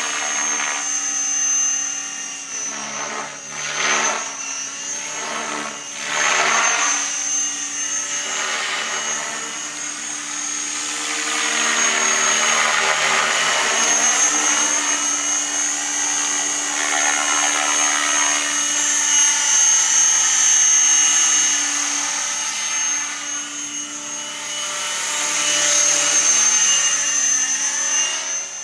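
Align T-Rex 550E electric RC helicopter in flight: a steady high motor whine over the whir of the rotor blades. The sound swells and fades several times and sweeps in pitch as the helicopter moves and tips through flips and inverted flight.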